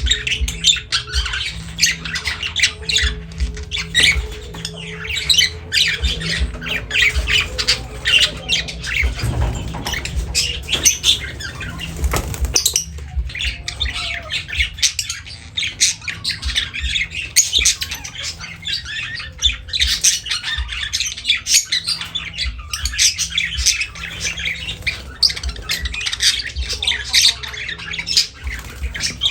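Lovebirds chattering and squawking: a continuous run of shrill, rapid short calls.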